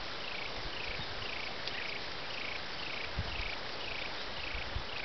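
A small animal chirping steadily in the background, about two short chirps a second, each falling slightly in pitch, over a constant hiss.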